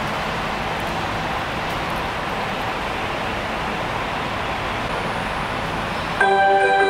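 Steady running noise of a Hokuriku Shinkansen train, an even rush with a faint low hum. Near the end a louder chime melody of bright mallet-like tones starts: an onboard signal that comes before an announcement.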